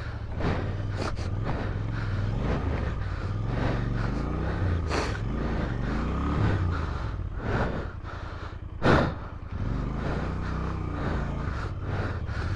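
Motorcycle engine running, its revs rising and falling, with a short loud rush of noise about nine seconds in.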